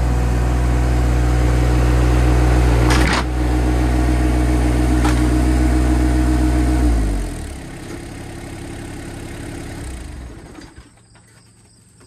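A Yanmar compact tractor's diesel engine runs steadily, with a clank about three seconds in. About seven seconds in its pitch falls and it winds down to a much quieter sound that fades out a few seconds later.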